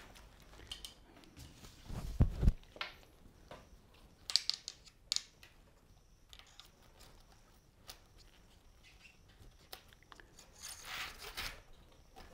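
Rubber speargun bands being handled and threaded through a roller gun's muzzle: rubbing and scraping of rubber, small clicks of the hooks, and a few low knocks about two seconds in, the loudest sound. A longer scraping rub follows near the end.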